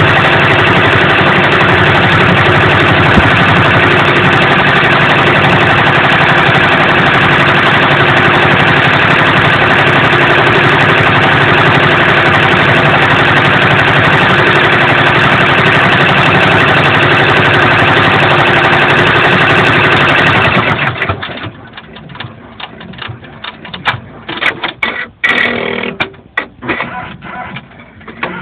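Brother PR600 multi-needle embroidery machine running steadily while stitching out a design. It stops abruptly about three-quarters of the way through, and irregular clicks and knocks follow.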